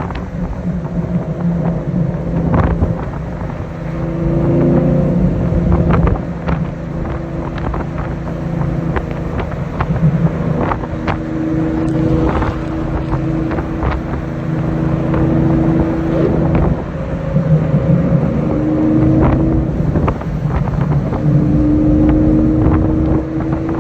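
Lamborghini Diablo's V12 engine running while driving. It swells and eases off in several stretches, with wind noise and frequent sharp knocks.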